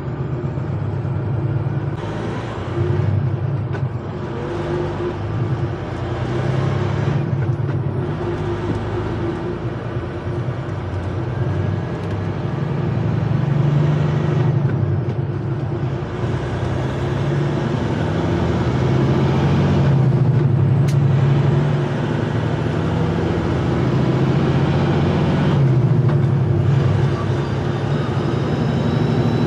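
Semi-truck's diesel engine and road noise heard from inside the cab while driving: a steady drone that grows somewhat louder as the truck gets under way.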